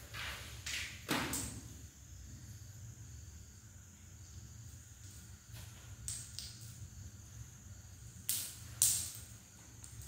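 Several brief rustling swishes from kittens batting at a tinsel toy and a plastic bag, the loudest near the end, over a low steady hum.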